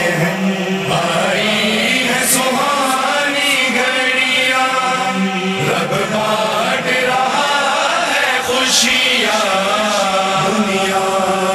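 Male voice singing a devotional Urdu manqabat in a chanting style, melodic lines wavering over a steady low drone.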